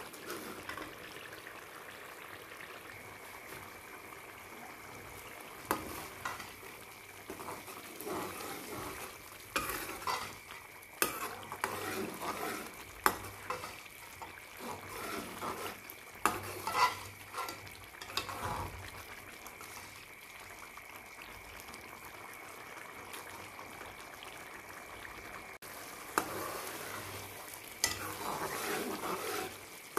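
Onion-tomato masala with chana dal frying in an aluminium pot, with a steady sizzle. A metal ladle stirs it, scraping the pot and knocking against its side every few seconds, most busily in the middle of the stretch and again near the end.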